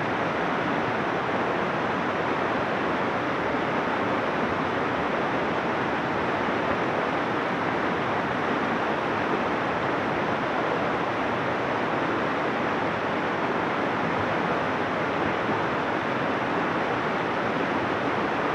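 Fast, shallow river rushing over rocks in rapids: a steady, unbroken noise of running water.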